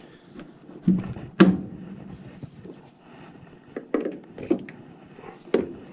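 Irregular knocks and clunks of hands and tools working hoses and fittings inside a furnace cabinet, about half a dozen in all, the loudest about a second and a half in.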